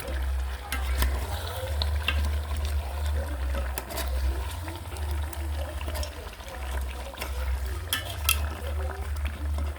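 Kienyeji chicken frying in its own fat while it is stirred in the pot, with occasional sharp knocks of the utensil against the pot. A steady low rumble runs underneath.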